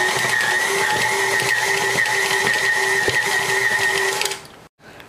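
KitchenAid stand mixer running with its dough hook, working a stiff mix of melted marshmallow and powdered sugar into fondant: a steady motor whine with a high steady tone over it. It cuts off about four seconds in.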